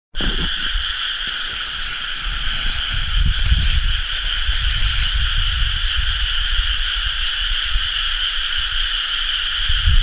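Dense chorus of many rice-paddy frogs calling at once, blending into a continuous high trill with no breaks, over a low uneven rumble.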